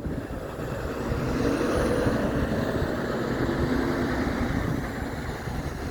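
Semi-truck driving off. Its diesel engine and tyres grow louder over the first two seconds, then ease off a little near the end.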